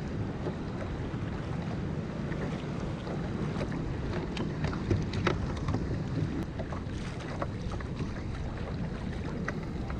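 Wind buffeting the microphone over choppy sea water sloshing around a fishing kayak, with scattered sharp ticks and splashes.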